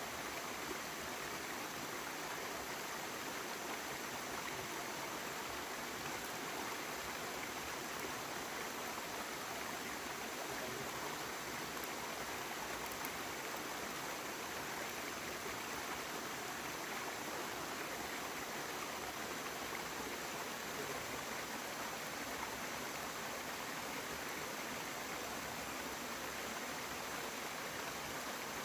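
Running water, a steady rush with no break.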